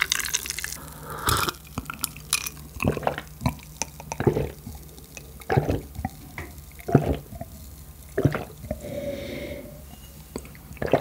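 A drink poured from a small aluminium bottle into a glass, followed by a string of gulps, roughly one a second, as the glass is drunk down.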